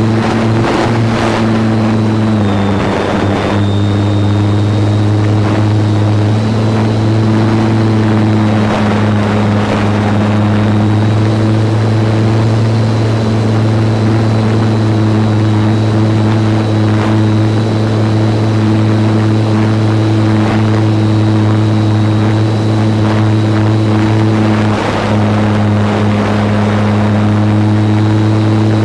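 Electric motor and propeller of a GWS Slow Stick RC plane running at steady throttle, heard from a camcorder mounted on the plane: a steady hum with a faint high whine above it, and noisy rushing air over the microphone. The pitch drops slightly about two and a half seconds in and dips briefly once more near the end.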